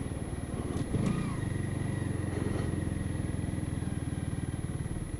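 Honda CBR 125's single-cylinder four-stroke engine running at low revs as the motorcycle rolls slowly onto a forecourt, with a brief rise about a second in.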